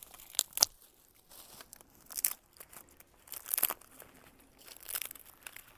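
Black plastic trash bag rustling and crinkling as dry sticks are pulled from it and handled, in several short bursts with a couple of sharp snaps.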